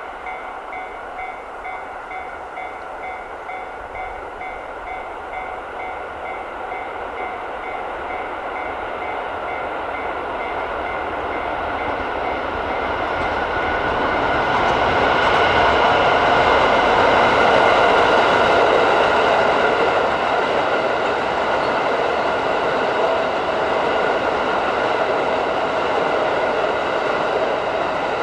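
A level-crossing warning bell ringing in a steady beat of about two strikes a second. The KiYa E195 series rail-transport train then approaches, growing louder, and runs past the crossing, loudest a little past the middle.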